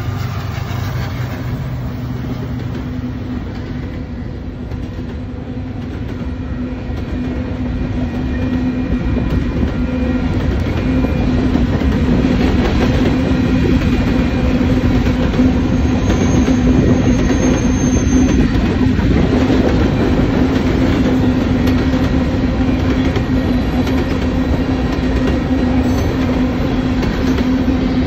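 Freight train of covered grain hopper cars rolling past close by: a steady rumble and rattle of steel wheels on the rails that grows louder about ten seconds in and then holds. There is a brief high wheel squeal around the middle.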